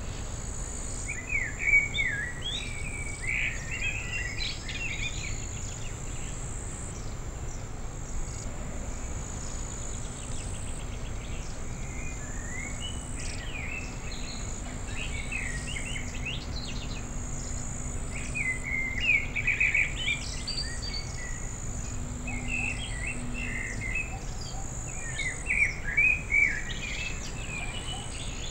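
Ambient wetland sound: a small songbird singing short phrases every few seconds over a steady high insect chirring, with a low steady rumble beneath.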